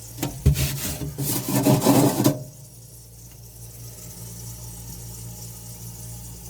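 Rubbing and scraping noise for about two seconds, then it stops, over a steady low hum.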